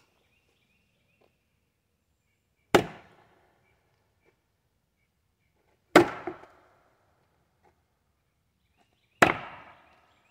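Three blows of a Fiskars X27 splitting axe swung sideways into a standing red oak log, about three seconds apart. Each is a sharp chop that dies away within about half a second.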